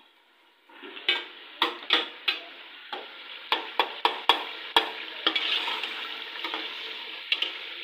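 Spoon stirring and scraping tomato masala and potatoes frying in a kadhai: a steady sizzle with repeated sharp knocks of the spoon against the pan, starting about a second in.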